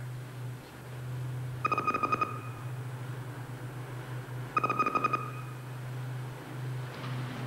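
Electronic computer sound effect: a steady low hum, with two short bursts of rapid two-pitched beeping, about a second and a half in and again about three seconds later.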